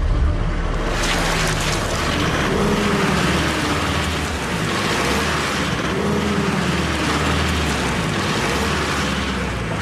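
A pickup truck's engine revving up and down about three times while its driven wheels spin on a slippery skid pan, with a steady hiss of wheelspin. The wheels cannot get enough grip to move it, because the vehicle is too light for traction.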